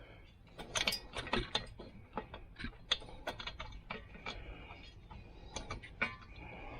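Hand work on a lawn mower engine: a run of irregular sharp clicks and light metallic rattles from tools and parts being handled.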